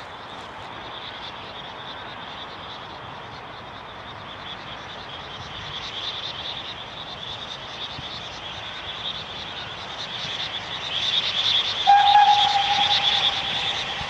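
Steam locomotive approaching, its rhythmic exhaust beats growing steadily louder. About twelve seconds in it gives one long, steady whistle blast.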